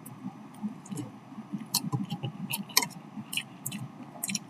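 A person eating noodles: chewing and mouth sounds with a scattering of short, sharp clicks and smacks.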